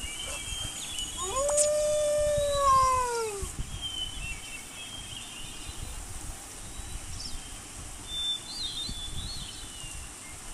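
An animal's long pitched call, lasting about two seconds, held steady and then falling away at the end, with faint high chirps in the background.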